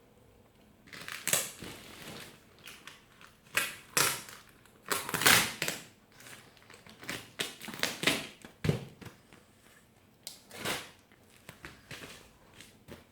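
Parcel packaging being handled, crinkling and rustling in irregular bursts, the loudest a little over five seconds in.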